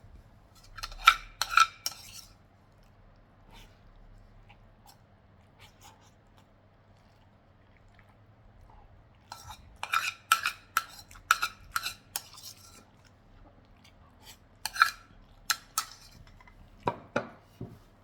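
Cutlery clinking and scraping against a plate while eating, in three short bursts of sharp clinks, with a couple of duller knocks near the end.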